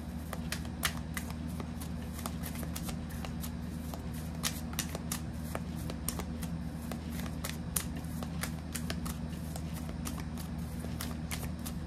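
A deck of tarot cards being shuffled by hand, the cards clicking and slapping against each other in quick, irregular strokes, over a steady low hum.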